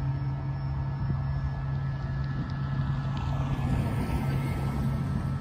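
Road vehicles at a railroad crossing: a steady low engine hum with cars driving past, one swelling and fading about three to four seconds in.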